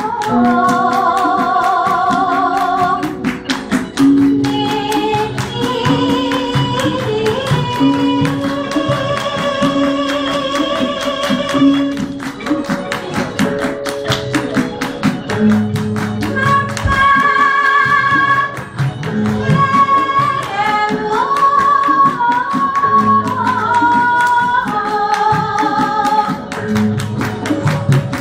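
Javanese gamelan accompanying palaran singing: long, wavering held vocal lines over steady, evenly repeated strokes on bronze metallophones.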